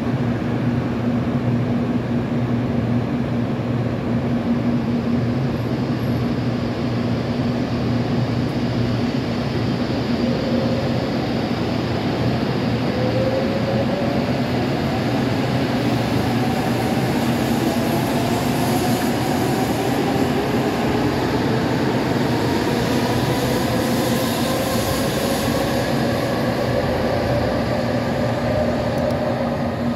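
Nishi-Kyushu Shinkansen Kamome bullet train pulling out of the station. A steady hum at first, then from about ten seconds in a whine that climbs slowly in pitch as it accelerates away. A rushing hiss builds as the cars go past.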